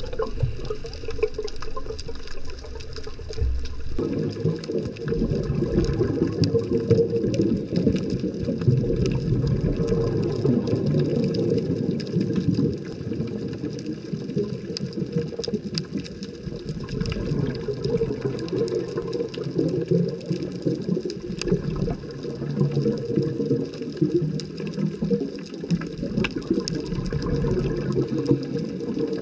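Underwater ambience heard through the camera's housing: a dense, muffled water rumble that grows louder about four seconds in, with faint crackling clicks above it.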